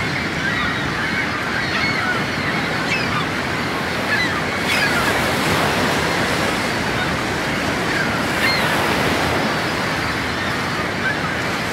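Ocean surf: a steady, even rush of breaking waves, with a few faint short bird calls above it.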